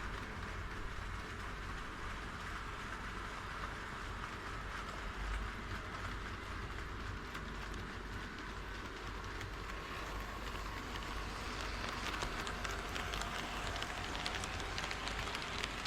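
HO-scale model train running on KATO Unitrack: a steady rolling rattle of small wheels on the rails, with clicking that grows denser in the second half.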